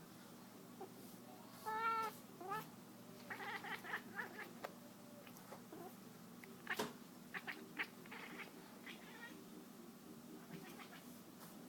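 Domestic cat making odd vocal noises while chasing a laser pointer dot: a longer wavering meow about two seconds in, then bursts of short, quick chirping calls. A single sharp tap sounds near the middle.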